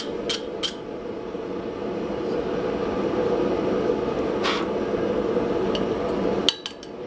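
Wire brush scrubbing scale off a glowing hot steel blank on the anvil: two quick strokes at the start. Then a steady low hum with a light clink of tongs about two-thirds through and a sharp click near the end.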